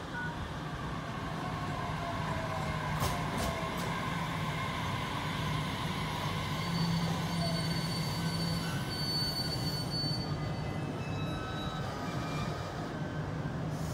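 JR Kyushu 815 series electric train pulling into a station and braking to a stop. A falling whine comes early on. High, steady squeals from the wheels and brakes come in the second half, over a steady low hum.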